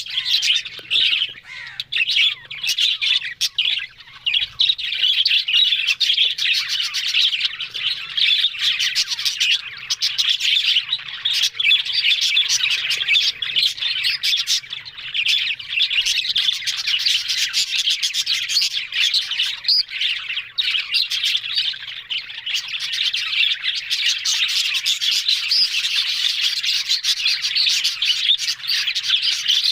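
Budgerigars warbling and chirping in a continuous chatter.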